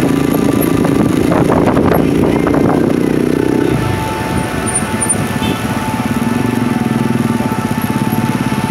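Motorcycle engine running while riding, louder for the first four seconds and then quieter and steady.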